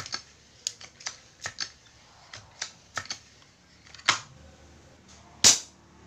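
Homemade gun being handled: a string of sharp clicks and knocks from its parts, about two a second, with two louder snaps about four and five and a half seconds in.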